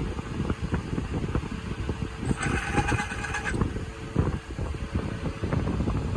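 Engine running with an uneven low rumble and many small knocks, likely the Toyota Premio's 1ZZ engine that has a sound problem. About two seconds in, a horn-like tone sounds for just over a second.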